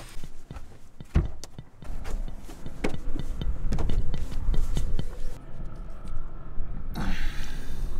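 Wind rumbling on the microphone from about a second in, with scattered knocks and clicks from the camera being handled and moved about; a short hiss about seven seconds in.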